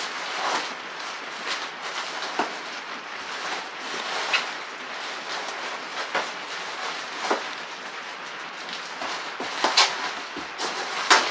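Handling noise: rustling with scattered, irregular clicks as a drink can is handled and turned close to the microphone.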